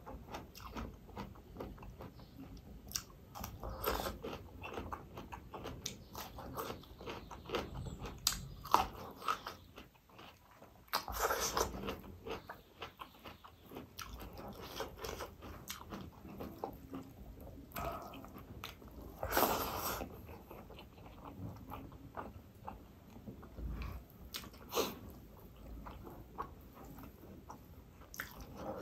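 Close-up eating sounds: crunchy bites and chewing of fresh cucumber slices and rice, with small wet clicks of fingers working the rice. A few louder crunches stand out, about eleven and nineteen seconds in.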